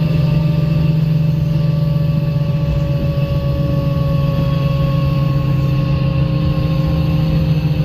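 Menarinibus Citymood 12 CNG city bus driving, heard from on board: the FPT Cursor 9 gas engine and ZF automatic driveline give a steady low drone with a thin whine that slowly falls in pitch.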